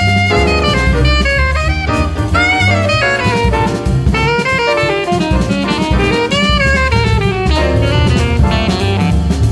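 Jazz quartet playing instrumentally: an alto saxophone plays bending melodic lead lines over double bass, piano and a drum kit with cymbals.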